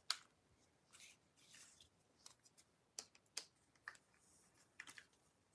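Faint, scattered clicks and light scrapes of a Canon EOS M100 mirrorless camera body being handled and fitted onto a bendable tripod.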